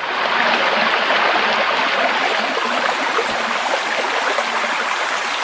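Steady rush of running water, like a flowing stream.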